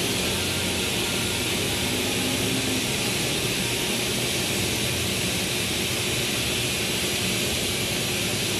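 A steady, even rushing hiss that does not change in level or pitch.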